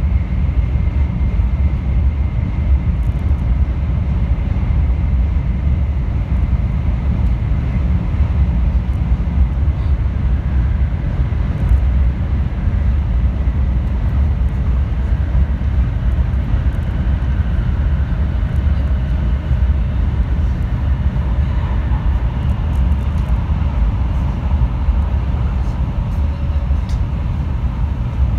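Steady low rumble of a 700 series Rail Star Shinkansen train running, heard inside the passenger car while it passes through a tunnel.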